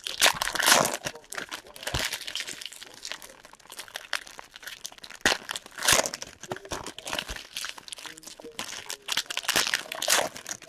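Foil trading-card pack wrappers crinkling and being torn open by hand, in irregular bursts with a few sharp snaps.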